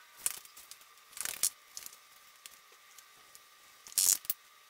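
Paper towel being crumpled and handled in short rustling bursts, three main ones, the loudest near the end, as hands work at a floor repair.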